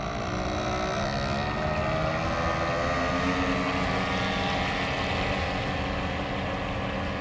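Radio-controlled model boat's motor running steadily as the boat cruises across the water. The note dips slightly in pitch during the first second or two, then holds steady.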